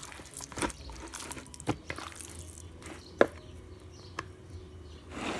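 Hand mixing spice-coated pangas fish steaks in a bowl: soft wet squishing with scattered sharp clicks, the loudest about three seconds in, and a short rush of noise near the end.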